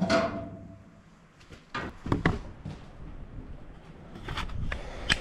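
A metal clank with a brief ring, then knocks and clicks as the dump bed of a John Deere AMT 600 utility vehicle is tipped up and propped open on a metal rod. Two knocks come about two seconds in and a run of clicks and knocks near the end.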